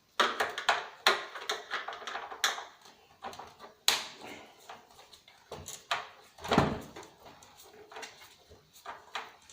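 Irregular knocks, clicks and scrapes of hand tools against the plastic case of a CRT TV and DVD combo as it is worked apart, with stuck screws holding it together. A longer, lower sound stands out about six and a half seconds in.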